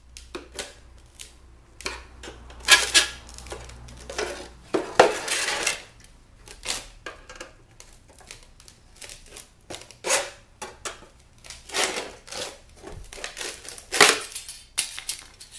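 Flathead screwdriver prying a perforated steel grill off a plastic speaker cabinet: irregular metallic clicks, scrapes and rattles, with several louder clanks spread through.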